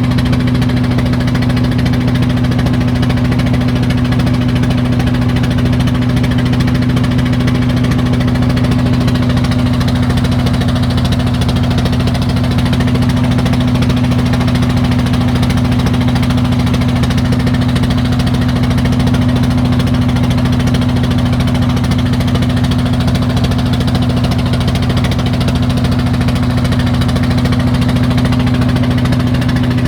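An engine running steadily at one constant speed, loud and unchanging.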